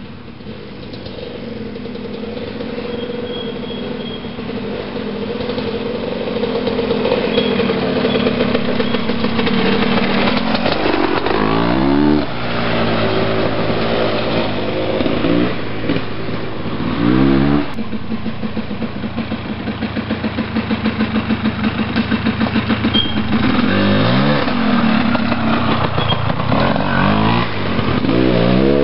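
A 1987 Husqvarna WR 400's two-stroke single-cylinder enduro engine. It grows louder as the bike approaches along a dirt trail, then revs repeatedly, with several rising sweeps in pitch as the rider opens the throttle.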